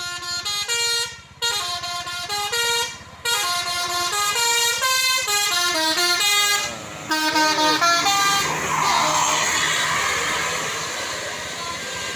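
Telolet Basuri musical air horn on a tour bus playing a stepping multi-note tune in short phrases for about eight seconds. After that a steady rushing noise takes over and slowly fades.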